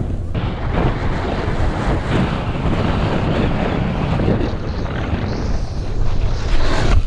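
Wind buffeting the microphone as a rider slides fast down a groomed slope, with the hiss of edges scraping over packed snow rising and falling through the turns.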